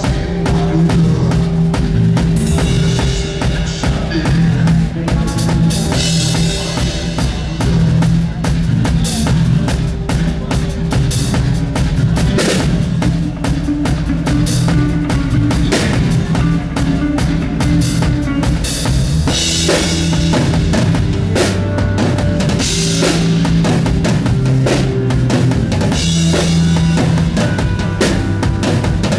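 Drum kit played in full with kick, snare and cymbals, alongside other instruments holding low sustained notes.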